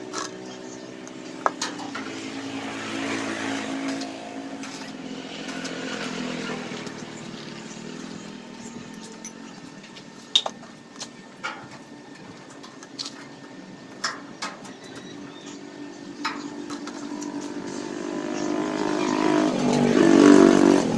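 A motor vehicle engine running, its pitch wandering and swelling to its loudest about a second before the end. Scattered sharp clicks and knocks are heard along with it.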